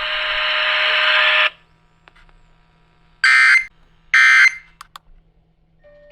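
Emergency Alert System digital data bursts (SAME tones). A loud buzzy burst lasts about a second and a half, two short bursts follow about a second apart midway, and another buzzy burst starts near the end. These are the coded bursts that close one warning and open the next.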